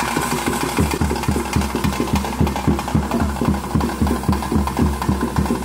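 Traditional bhuta kola ritual drumming: a fast, steady beat of about four to five strokes a second, with a steady high tone held over it.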